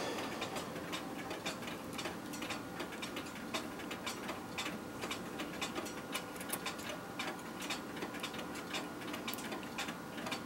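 A clock ticking steadily, about two ticks a second.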